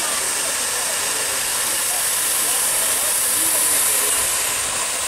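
Steady hiss of steam escaping from the idling DM&IR 332 steam locomotive.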